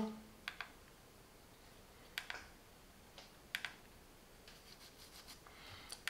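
Plastic buttons on a SofaBaton X1 remote control clicking as they are pressed to change channel. The clicks come in short double clicks, three of them about a second and a half apart, with a few fainter clicks near the end.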